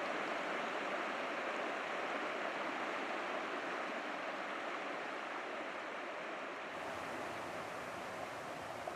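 Provo River flowing: a steady rush of stream water.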